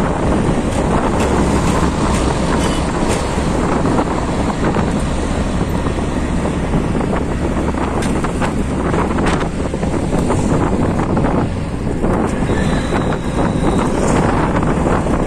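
Auto-rickshaw ride heard from inside its open passenger cabin: the engine runs steadily under wind noise on the microphone and the rush of road traffic.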